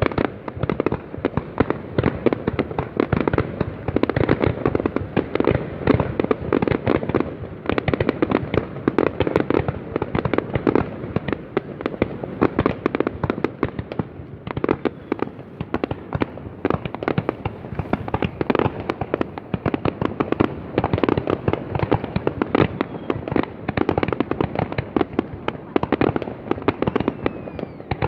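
New Year's Eve aerial fireworks going off: many overlapping bangs and pops, several each second, in an unbroken barrage.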